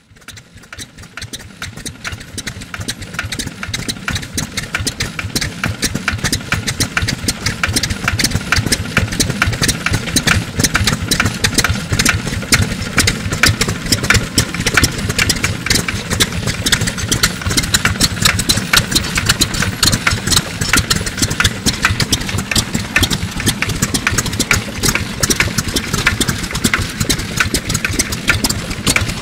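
Fulperland Diesel Type FC, a horizontal water-cooled single-cylinder 346 cc farm diesel, running unloaded at a leisurely pace with a steady, even exhaust beat. The sound swells up over the first few seconds.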